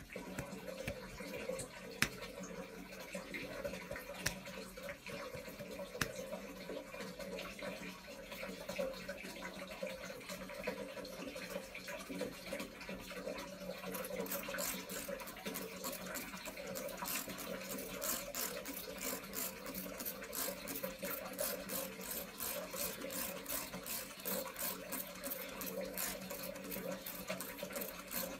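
A few faint clicks over a steady low hum, then, from about halfway in, a trigger spray bottle squirting water onto skin in quick repeated hissy bursts, about three a second.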